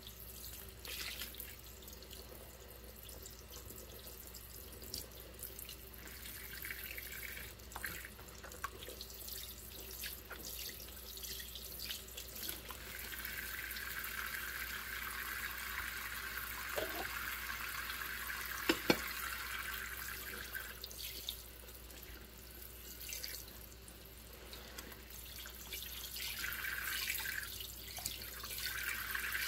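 Dishes being hand-washed in a stainless-steel sink of soapy water: water splashing and suds hissing. There are a couple of light clinks of dishes about two-thirds of the way through.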